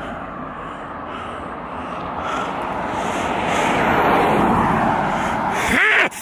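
A car passing by on the road: tyre and engine noise grows louder as it approaches. A short rising-and-falling pitched sound comes at the peak, then the sound cuts off abruptly.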